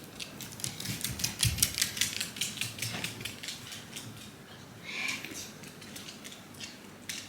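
Shiba Inu's claws clicking rapidly on a hard floor as it trots off, thinning out after about four seconds. A short high squeak about five seconds in.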